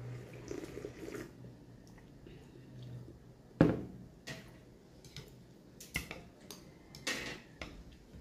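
Mukbang eating sounds: chopsticks clicking and knocking against a noodle bowl, with scattered softer eating noises. The sharpest knock comes about three and a half seconds in.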